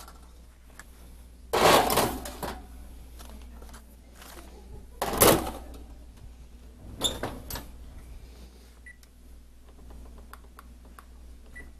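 Metal clatter of aluminum baking pans being slid onto oven racks. A loud scraping clatter comes about two seconds in and a sharp clank about five seconds in, then lighter knocks as the oven door is shut.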